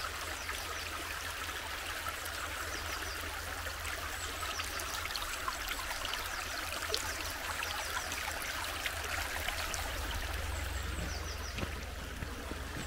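Shallow spring meltwater stream trickling and gurgling over stones and gravel in a steady, even rush.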